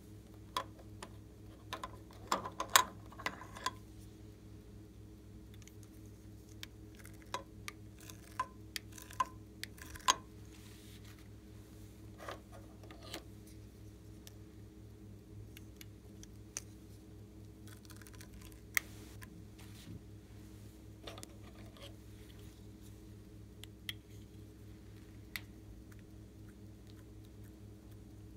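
Scattered light plastic clicks and taps from stacked heart-shaped marker pieces being pulled apart and handled, loudest in a cluster a few seconds in, over a faint steady hum.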